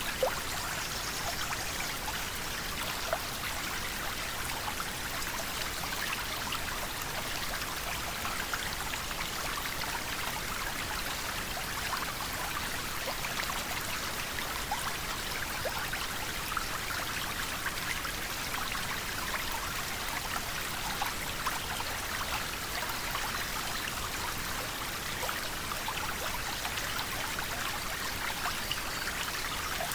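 River water flowing steadily over stones, a continuous rushing with many small splashes and gurgles.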